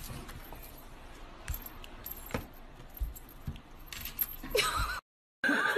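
Scattered light clicks and jingling rattles as a kitten plays on a table, with a brief wavering sound near the end.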